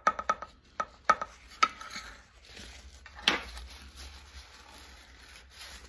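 Small sharp taps and clicks on a metal muffin tin, each with a short ring, during the first couple of seconds. Then a paper napkin rubs over the tin to wipe off spilled batter, with one louder scrape about three seconds in.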